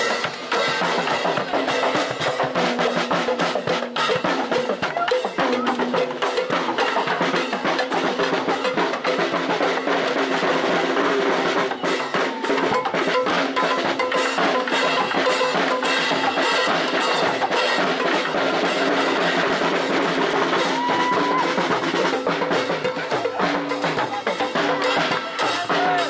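A street drumline playing marching snare and bass drums with cymbals: a dense, continuous stream of drum strokes without a break.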